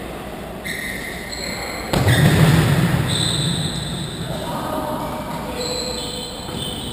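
A football struck hard about two seconds in, with a sudden thud that booms and echoes around a large sports hall before dying away.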